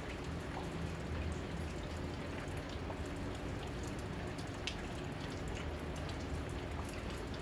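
Steady rain falling, with scattered drops ticking and dripping close by, over a low steady hum.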